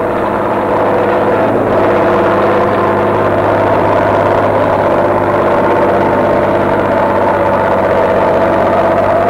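Diesel engines of heavy earth-moving motor scrapers running steadily under load.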